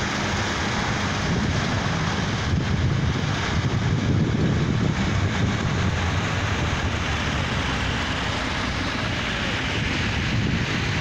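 Several vintage tractor engines running steadily as a line of tractors drives past, with wind buffeting the microphone.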